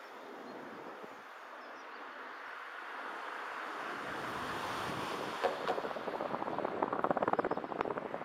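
Wind buffeting the microphone, building through the second half into a gusty, fluttering rumble.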